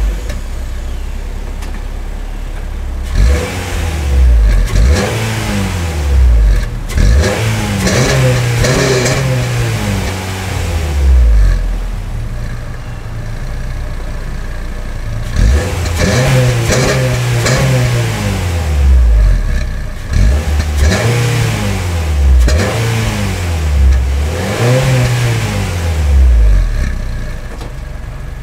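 Exhaust of a 9th-generation Honda through a fully gutted Walker Quiet-Flow muffler, the engine idling and revved repeatedly in short blips that rise and fall back to idle.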